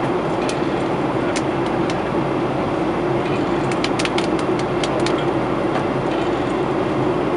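Steady cabin noise of a Boeing 737-800 in flight, heard at a window seat beside the wing: the CFM56-7B turbofan's drone and the rush of airflow, with a constant low hum. Scattered light clicks sound over it.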